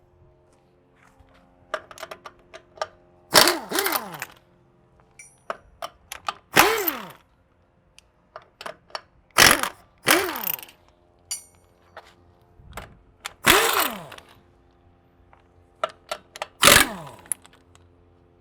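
Hand tools working at a nail lodged deep in a trailer tire's tread: about six loud, sharp scraping knocks roughly every three seconds, each trailing off in a falling tone, with lighter clicks between them.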